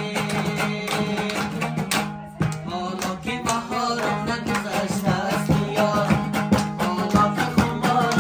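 Dambura, the long-necked two-string lute, strummed fast in a folk song with a man singing and people clapping along in rhythm; the music briefly drops away about two seconds in.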